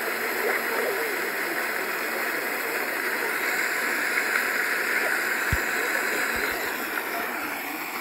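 Dancing fountain's row of water jets spraying up and splashing back into the pool: a steady rushing of falling water.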